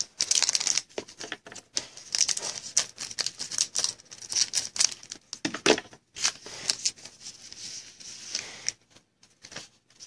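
Foil wrapper of a trading-card pack crinkling and tearing as it is ripped open by hand, in a long run of irregular crackles and rips.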